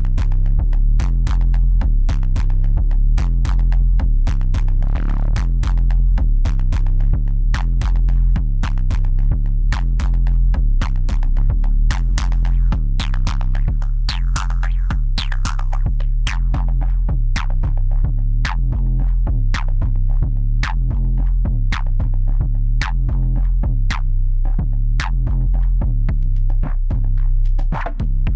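Korg Volca Sample playing a looping electronic drum pattern of sharp percussive hits over a steady, repeating low bass. It runs through a Sherman Filterbank with its two filters panned hard left and right, and the filtered tone shifts as the filterbank's knobs are turned.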